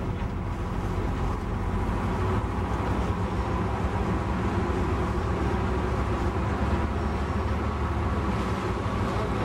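Fire department boat's engine running steadily, a continuous low drone with a constant hum.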